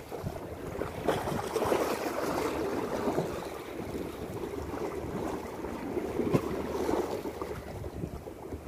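Sea waves washing and splashing against breakwater rocks, in swells that rise and fall, with wind buffeting the microphone. A few brief sharp clicks, the sharpest about six seconds in.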